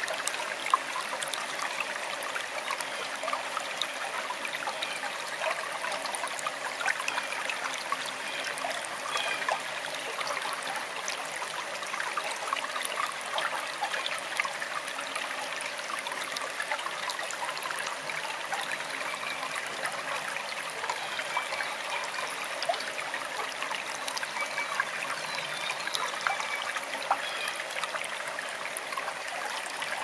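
Forest stream flowing: a steady babble of running water with many small splashes and trickles.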